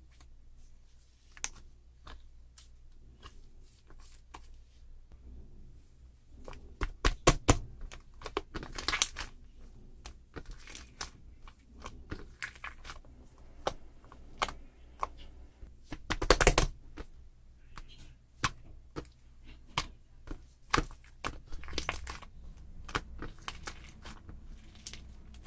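Marbled slime being squished and stretched by hand, giving a run of sticky clicks and small pops, loudest in two dense bursts about seven and sixteen seconds in.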